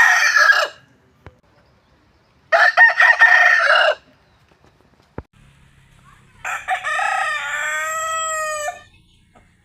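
Roosters crowing: the end of one crow right at the start, a full crow about two and a half seconds in, then a longer, clearer crow from about six and a half seconds with a drawn-out, falling final note.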